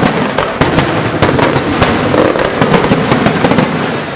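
Fireworks going off in rapid succession: a dense run of sharp bangs, several a second, over continuous crackling.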